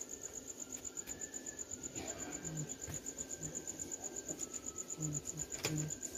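Cricket chirping in a steady, fast, even pulsing trill, with a few faint clicks over it.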